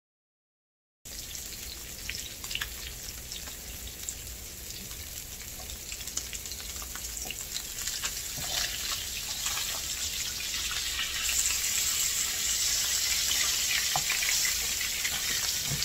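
Snakehead fillets sizzling as they fry in butter and olive oil in a nonstick pan, with scattered light taps and scrapes of a spatula turning them. The sizzle starts about a second in and gets steadily louder, most of all in the second half.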